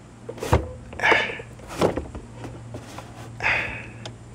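Plastic center-console trim being handled and worked loose around the shifter boot: a sharp knock about half a second in, then three short rasping scrapes.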